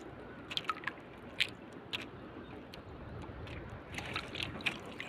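Nylon handline being hauled in by hand on a small outrigger boat: scattered soft clicks and scrapes of line and fingers over a low wash of sea and wind. The clicks come closer together near the end.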